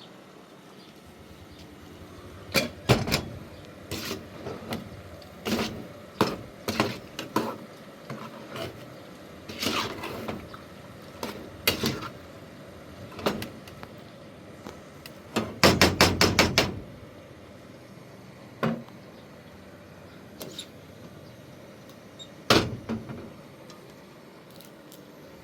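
Irregular knocks and clatters, some single and some in pairs, with a quick run of rapid taps about sixteen seconds in.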